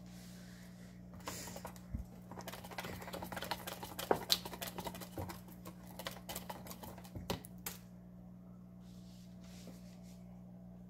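Wire whisk beating waffle batter in a bowl: a quick, uneven run of clicks and scrapes against the bowl that starts about a second in and stops after about six seconds. A faint steady hum lies underneath.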